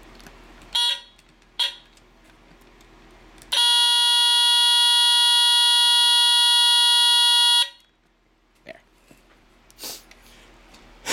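Sears 350.57045 smoke alarm's squealer horn: two brief blips about a second in, then a loud, steady, shrill tone for about four seconds that cuts off suddenly. The alarm is finicky about its test button, which the owner puts down to contacts that need adjusting.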